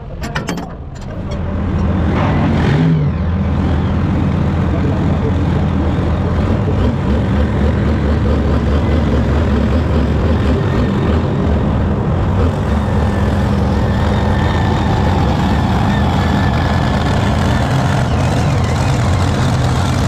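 Turbocharged diesel engine of a John Deere Super Farm pulling tractor running steadily at low speed while the tractor is driven, a loud low drone. A thin high whistle joins in during the second half.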